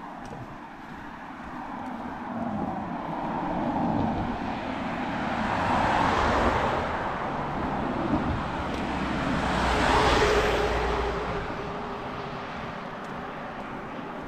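Road vehicles passing one after another on the road alongside, their tyre and engine noise swelling and fading, loudest about six and ten seconds in.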